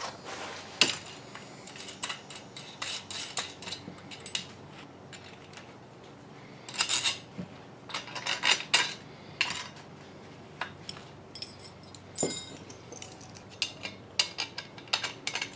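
Small metal hardware clinking and rattling as a U-bolt mount is handled against the square aluminium boom of a 2-meter Yagi antenna. Irregular sharp clicks, busiest around the middle.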